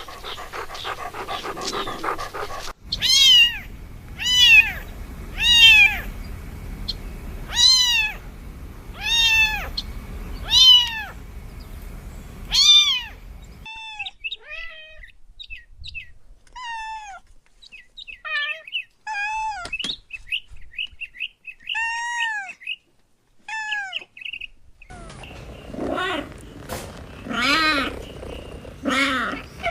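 Cats meowing in a series of separate recordings: about seven loud, evenly spaced meows, then softer, shorter mews, then a few more meows near the end. A short stretch of noisy sound comes first.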